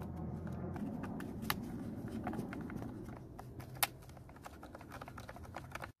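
Screwdriver working the screws of a string trimmer's plastic rear engine cover: scattered small clicks and light scraping of metal on plastic, with two sharper clicks.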